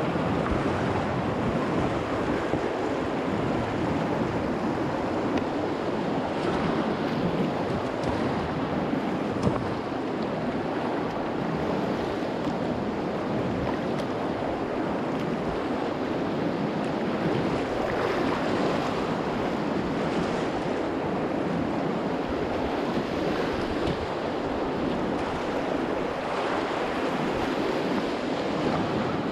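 Whitewater of a river rapid rushing steadily around the kayak, with some wind buffeting the microphone.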